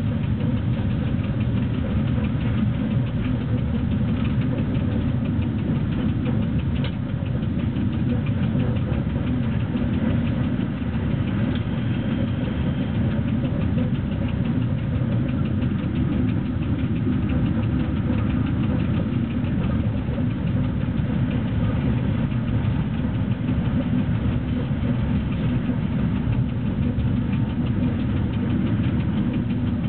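Steady running noise inside the cab of electric locomotive BDZ 46 045 hauling a freight train: a constant low rumble of wheels on track and traction equipment, with a continuous fine rattle.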